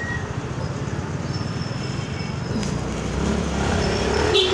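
Motorcycle engine running under way in city traffic, with wind and road noise, getting a little louder in the last second or so. A short pitched sound comes in near the end.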